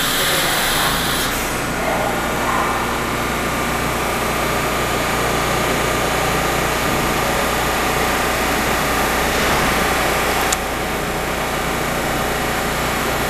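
R143 subway train standing at the platform, its air-conditioning and onboard equipment running with a steady hum. A single sharp click about ten seconds in.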